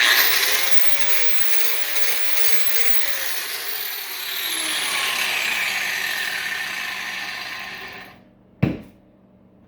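Angle grinder with a cut-off wheel starting up and cutting into a transformer winding for about eight seconds, a steady motor whine under a harsh hiss, then stopping. A single thump follows shortly after.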